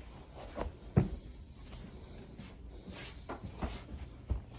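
A series of irregular soft knocks and thumps, about eight in all, with the loudest about a second in.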